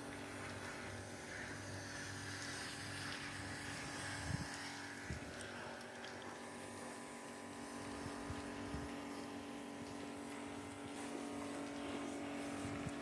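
A steady mechanical hum with a constant low tone over a faint hiss, with a couple of soft knocks about four and five seconds in.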